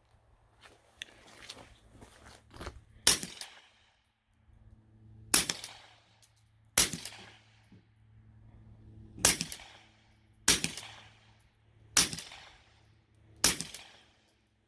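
Suppressed CZ Scorpion Evo 9 mm pistol fired through a Liberty Centurion 9 suppressor: seven single shots, spaced about one and a half to two and a half seconds apart. A few faint clicks come just before the first shot.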